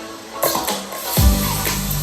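Electronic music played through a JBL IRX112BT 12-inch powered PA speaker. A bright crash comes in about half a second in, then a heavy kick drum and deep sustained bass start just after a second, with the kick hitting in a steady beat.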